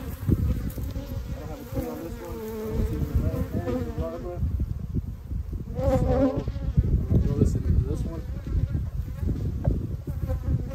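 Honeybees buzzing around an opened hive, the hum swelling and fading as bees fly close to the microphone, loudest about six seconds in. Light knocks from wooden hive frames being handled.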